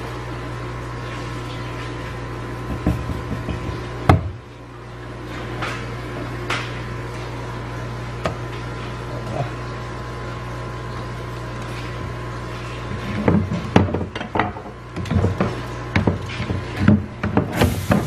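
Steady background hum with a few scattered knocks on the cutting board, then a dense run of knocks and rustling over the last five seconds as plastic film is spread out under the fish.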